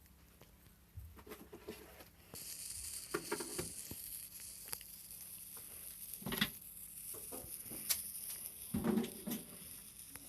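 Scattered small clicks, taps and rustles, with a few louder knocks, over a steady high hiss that starts about two seconds in.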